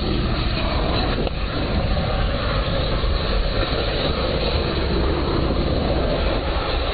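Lithium-ion battery pack in catastrophic failure (thermal runaway), venting jets of flame with a steady, dense rushing noise and a deep low rumble.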